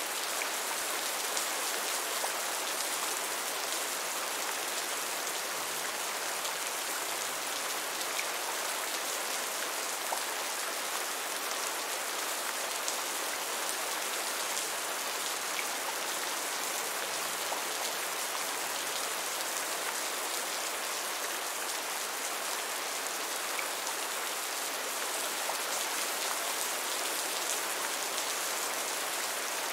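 Heavy rain falling steadily, an even hiss with a few single drops ticking out here and there.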